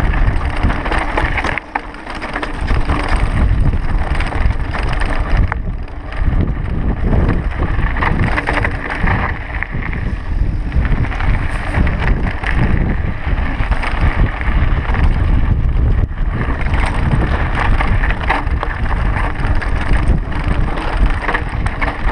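Mountain bike ridden down a loose gravel and rock trail: tyres crunching and the bike rattling over stones, with wind rumbling on the camera microphone. The noise dips briefly about two seconds in.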